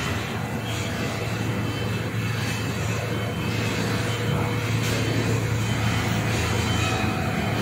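Rhong RCMC-60A air-cooled screw chiller running, its 60 HP screw compressor and fans giving a steady low hum under an even rushing noise.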